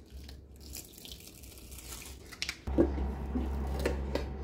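Water running from a sink tap, with a steady hum that sets in about two-thirds of the way through. Scattered knocks and clicks come from a cement pot being handled.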